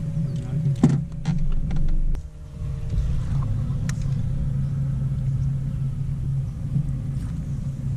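Bass boat's electric trolling motor running at the bow, a steady low hum, with a few sharp clicks about a second in.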